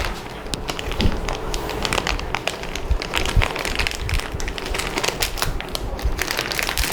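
Hands handling PC parts and cables: a run of small, irregular clicks and crackles.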